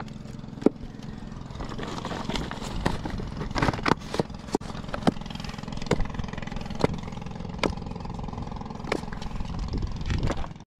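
An engine runs steadily, with scattered sharp clicks and knocks over it. The sound cuts off abruptly near the end.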